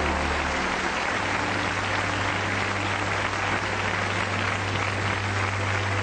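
Live audience applauding steadily, over background music holding low sustained notes.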